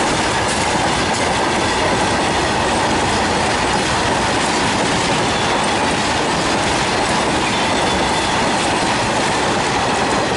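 Freight train wagons rolling past at speed: a loud, steady rumble with wheel clatter over the rails.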